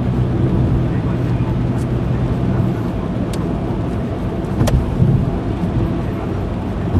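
Car driving on a road, heard from inside the cabin: steady road and tyre noise with a low engine hum that fades about three seconds in, and a couple of sharp ticks around the middle.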